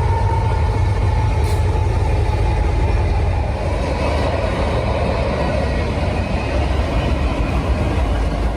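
Freight train rolling past with a loud, steady rumble of wheels on rails.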